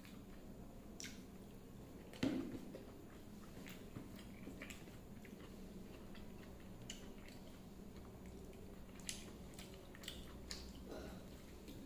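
A person chewing and biting food close to the microphone: scattered small mouth clicks and smacks, with a louder bite about two seconds in and another near the end, over a faint steady hum.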